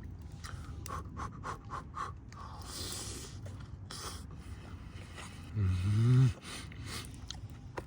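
A man eating a hot cheese gyoza: mouth clicks and chewing, breathy exhales, then a low, rising hummed "mmm" of enjoyment about six seconds in.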